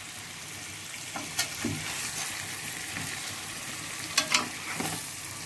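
Potatoes cooking in thick oily gravy in a steel pan, the separated oil sizzling steadily. A few short scrapes and clinks of a steel spoon against the pan as the potatoes are turned, the loudest a little after four seconds in.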